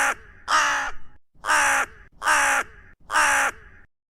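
A bird giving a series of five loud calls, each about half a second long and falling slightly in pitch at its end, repeated roughly every three-quarters of a second.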